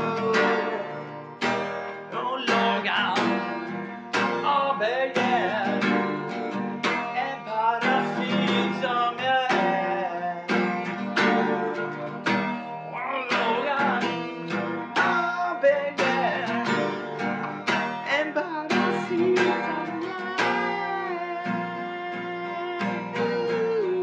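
Guitar music: strummed chords at a steady rhythm, with a melodic line gliding and bending over them.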